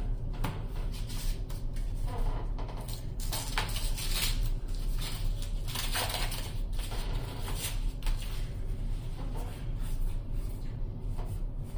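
Yu-Gi-Oh booster pack wrappers and trading cards being handled: a run of short crinkles, rustles and scrapes, with a steady low hum underneath.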